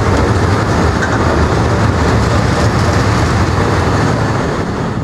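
Freight train of tank wagons passing close at speed: a steady, loud rumble and rush of wheels on rail.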